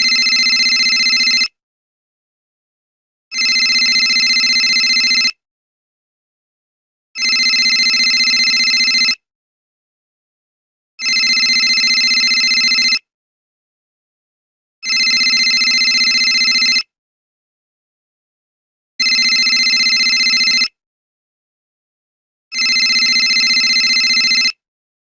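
Mobile phone call tone: a steady electronic tone about two seconds long, repeating evenly with silent gaps of just under two seconds, seven times.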